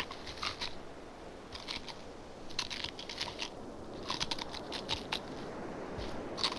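Sound effect of a giant crab clawing and crushing: irregular clusters of quick, dry clicks and crackles, a burst every second or so, over a faint low rumble.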